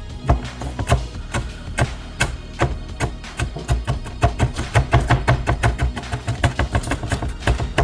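Large kitchen knife chopping red and yellow bell peppers on a cutting board: rapid, irregular knocks, several a second, coming faster after the first few seconds. Background music plays underneath.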